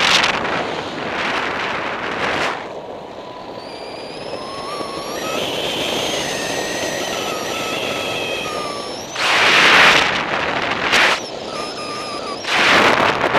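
Wind rushing over the microphone of a paraglider in unpowered flight, with no engine running, and strong gusts near the end. A thin, wavering whistle sounds for several seconds in the middle and briefly again later.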